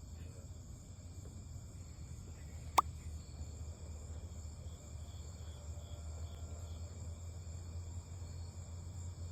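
Faint outdoor ambience picked up by a doorbell camera's microphone: a steady low hum and a thin, high insect-like chirring, with one sharp click about three seconds in.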